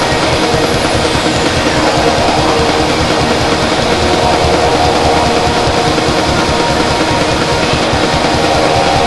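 Loud, steady droning wash of dense noise with several held low tones underneath, unchanging throughout, in the manner of drone or noise music.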